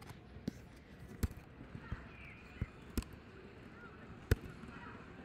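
Scattered sharp clicks at a computer desk, about six in five seconds and irregularly spaced, over low room noise with faint high chirps.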